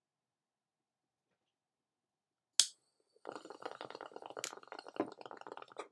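Near silence, then a jet-torch lighter clicks on about two and a half seconds in. A glass bong then bubbles rapidly and steadily as he pulls smoke through its water.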